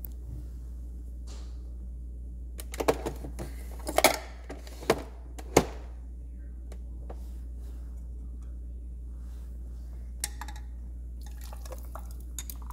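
Sharp clicks and knocks from handling a Nespresso capsule machine and its lever, bunched between about three and six seconds in. Near the end, espresso is poured from a small glass over ice cubes into a tall glass, with a faint clink. A low steady hum runs underneath.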